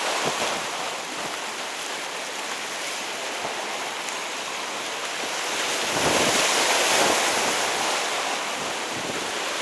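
Shore waves washing in as a steady rush of water, surging louder about six seconds in.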